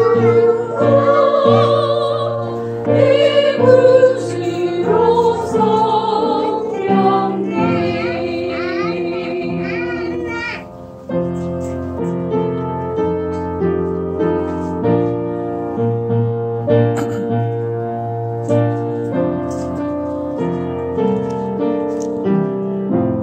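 A small church vocal ensemble, mostly women's voices, singing a hymn with keyboard accompaniment. About ten seconds in the voices stop, and the accompaniment plays on alone in even chords about once a second.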